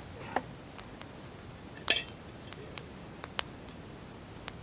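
Metal cookware clinking: a utensil or lid knocking against a metal pot or mug in a handful of sharp, separate clinks, the loudest about two seconds in with a brief ring.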